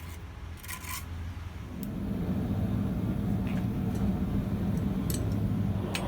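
A few light metal clicks, then from about two seconds in a freshly lit forge running with a steady low rumble.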